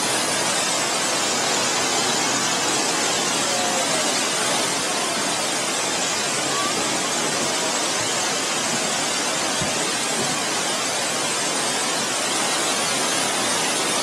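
The Mitō Ōtaki waterfall rushing, a steady, even roar of falling water.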